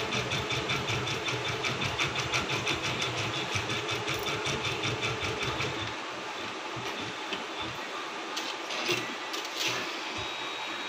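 Usha Janome Memory Craft 550E computerised embroidery machine stitching a design at a fast, even rhythm, stopping about six seconds in. A few quieter clicks follow.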